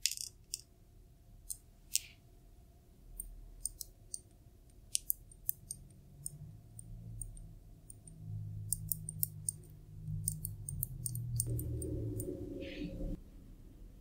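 Glass dropper bottle of serum being handled: a scatter of small sharp clicks and glassy taps. A low muffled handling noise runs through the second half and stops about a second before the end.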